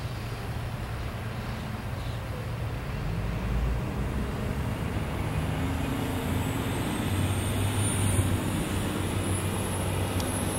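Norfolk Southern autorack freight cars rolling past: a steady low rumble that grows a little louder about halfway through, with a faint high whine rising in the second half.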